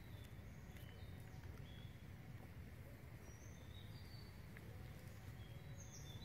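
Quiet outdoor ambience: a steady low rumble with a few faint, short high chirps scattered through it.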